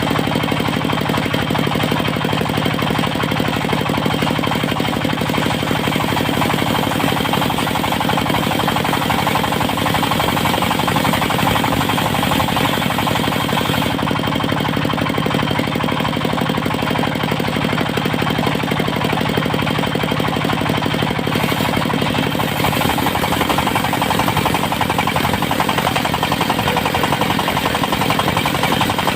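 Engine of a portable circular-saw sawmill running steadily with a rapid knocking beat. The low engine note changes about two-thirds of the way through.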